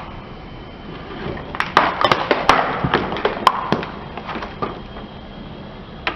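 Car tyre rolling over and crushing a crunchy object: a quick run of sharp cracks and snaps that starts about a second and a half in and dies away near the fifth second, over a steady low rumble.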